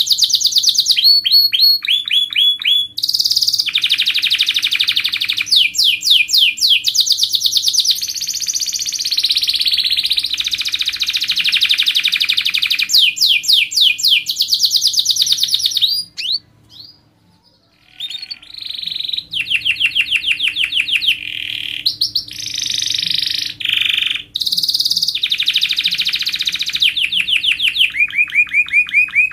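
Domestic canary singing a long song of rapid, tightly packed trills and rolls mixed with chirps, breaking off briefly a little past halfway before rolling on.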